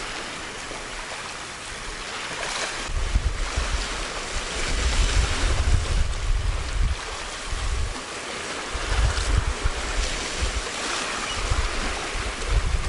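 Sea waves washing against shore rocks, with wind gusting over the microphone in low rumbles several times.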